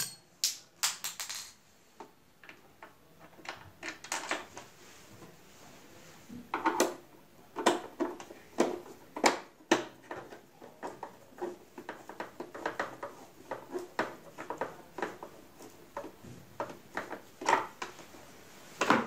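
Small nuts or screws and a tool being worked into the back of a Singer Promise 1408 sewing machine's plastic housing: irregular small clicks, taps and light metallic rattles.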